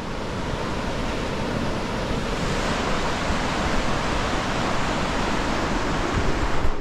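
Mountain river rushing over rocks: a steady white-water noise that grows a little louder about two seconds in.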